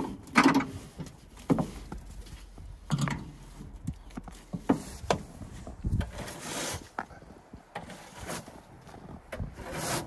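Snow brush sweeping and knocking snow off a firewood processor's metal frame and mesh guard, in irregular strokes with short swishes and thumps about every second or so.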